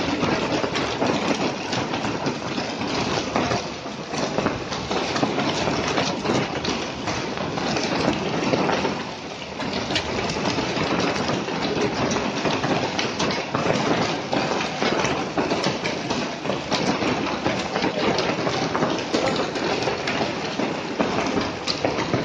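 Hail mixed with heavy rain falling: a dense, steady hiss full of small clicks and taps from hailstones striking. It eases briefly about nine seconds in.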